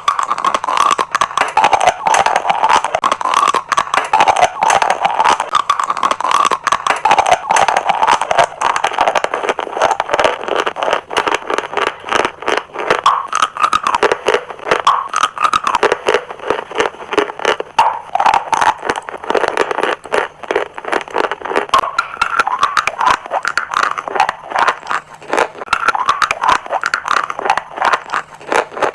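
Dry chalk crunching close to the microphone: a dense, unbroken run of crisp crackles and snaps.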